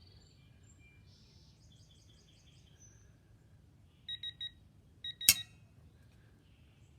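Faint electronic chirps, then three short beeps from a digital torque adapter, followed by a single sharp click from the deflecting beam torque wrench's pin releasing at its set torque.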